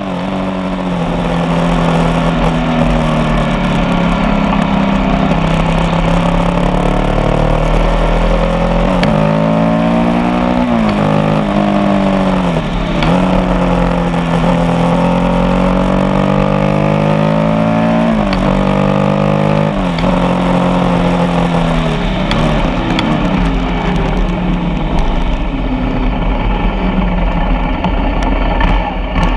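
Motorcycle engine pulling under load, its revs climbing and then dropping sharply several times as it shifts gears, over steady rushing noise.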